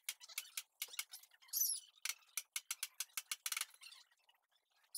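Hand tools clicking in short runs of quick, light clicks while a car's front fender is worked on, with a dense burst of clicks about three and a half seconds in. A short bird chirp sounds about a second and a half in and again at the end.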